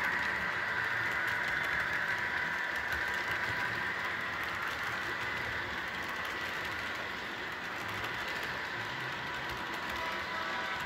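Model freight train running past on curved sectional track: a steady whir of wheels rolling on the rails, with a faint constant hum.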